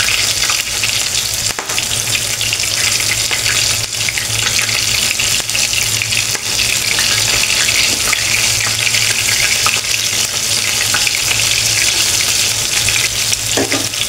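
Flour-dredged chicken pieces frying in hot oil in a pan: a steady sizzle with dense crackling, over a low steady hum.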